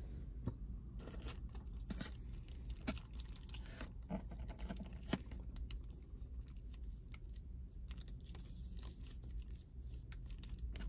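Faint crinkling and rustling of a plastic ketchup packet being squeezed out over a foam food container, a scatter of small clicks and crackles.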